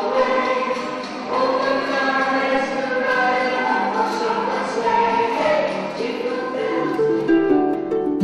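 Choir singing a song, with plucked-string notes coming in near the end.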